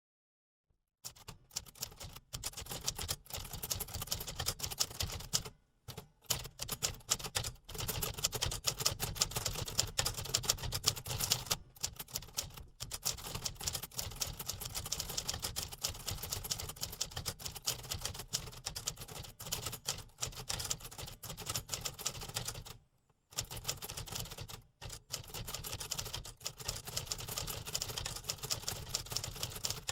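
Typewriter keys clacking in fast, continuous typing, starting about a second in, with a couple of brief pauses.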